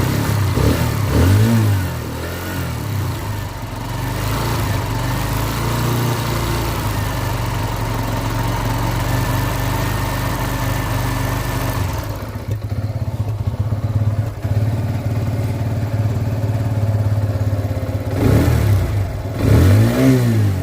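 An engine running with a steady low hum, its pitch rising and falling briefly about a second in and twice more near the end.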